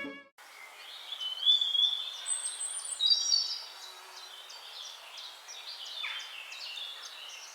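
Several birds singing and calling together, a mix of short chirps and whistled phrases.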